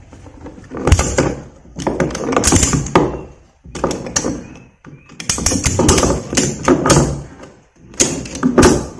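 Ratchet tie-down strap being tightened: the webbing is pulled through and the steel ratchet handle is cranked back and forth, clicking and clacking in about five bursts.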